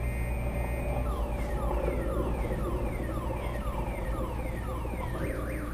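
Electronic alarm siren cycling through its tones. A steady beeping tone is followed about a second in by a repeating falling whoop, about two a second, which switches near the end to a fast up-and-down warble.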